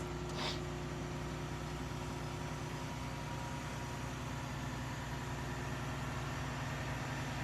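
Bucket truck's engine running steadily while the aerial bucket is lowered, with a short click about half a second in.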